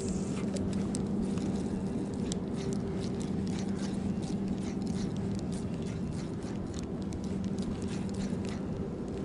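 Spinning reel being cranked steadily to retrieve a spoon lure: a steady whir with many small clicks.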